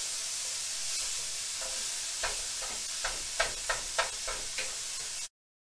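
Ground pork sizzling in a frying pan, with a plastic meat chopper scraping and tapping against the pan in a quick series of strokes from about two seconds in. The sound cuts off suddenly near the end.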